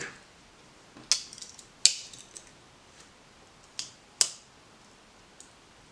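Mikov PRAKTIK pocket knife's blade being worked open and snapping into its liner lock: four short, sharp metallic clicks, two close together near the end.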